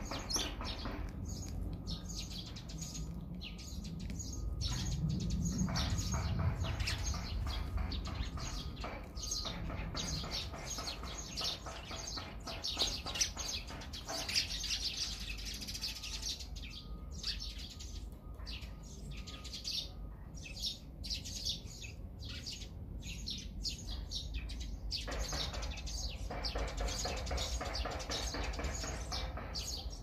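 Small songbirds chirping: many short, high calls overlapping in a continuous chatter, over a low steady rumble.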